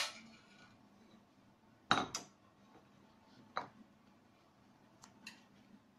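A few sharp clinks of a metal spoon, a steel saucepan and a plate being handled on a kitchen counter. One comes at the start, the loudest is a double clink about two seconds in, and smaller single ones follow at about three and a half and five seconds.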